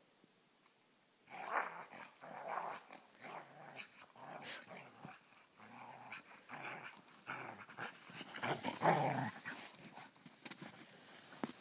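Two dogs play-fighting, growling in irregular bursts with scuffling in the snow, starting after about a second of near silence and loudest near the end.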